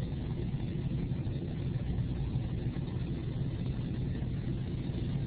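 A steady low hum, even throughout, with no distinct events.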